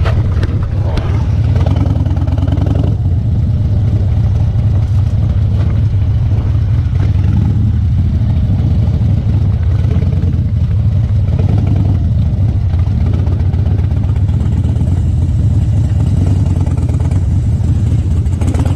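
Harley-Davidson Dyna Street Bob's air-cooled V-twin engine running at low speed, a steady low rumble as the bike rolls slowly along a driveway and across grass.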